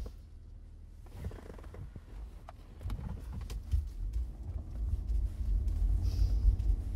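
Car heard from inside the cabin: a low rumble that builds from about three seconds in and grows louder near the end. A few light knocks and rustles come before it.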